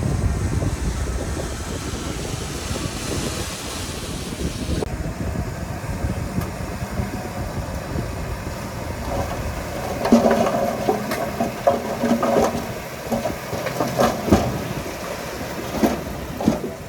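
Heavy earthmoving machinery's diesel engine running steadily. In the second half come several sharp metallic knocks and clanks.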